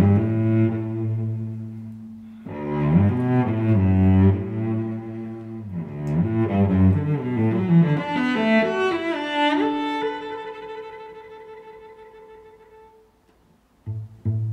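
Background music led by bowed low strings, fading away over the last few seconds, with new short notes starting sharply just before the end.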